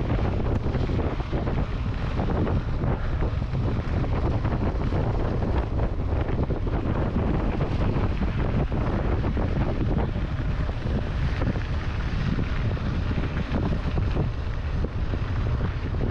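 Wind rushing over the microphone at riding speed, over the steady rumble and crackle of mountain-bike tyres rolling on a loose dirt and gravel road.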